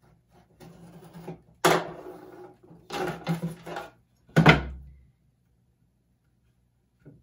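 X-Acto knife dragged through a paper map mat, with rough scraping and tearing that the crafter puts down to a blade that is not sharp enough. About four and a half seconds in, a single loud thump on the tabletop.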